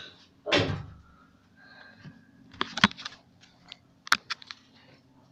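Handling noise: a loud rustling sweep about half a second in, then a scatter of sharp clicks and knocks a little before the middle and again about four seconds in.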